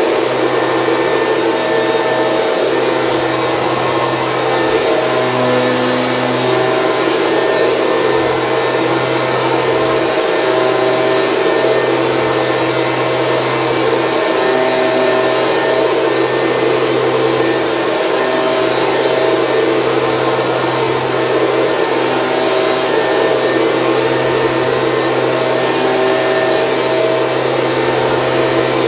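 Stihl BG 86 C handheld leaf blower running steadily: its small two-stroke engine holds an even pitch under the rushing of the fan air.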